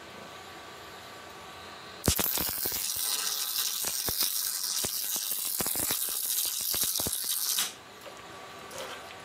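Wire-feed welding arc crackling and sizzling while a stitch weld is run on steel plate. It starts about two seconds in, runs steadily for about five and a half seconds and cuts off sharply.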